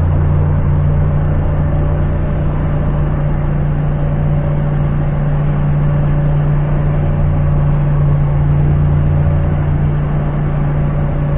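Doosan forklift's engine running steadily as the forklift drives with a load on its forks, heard from inside the cab as an even, low hum.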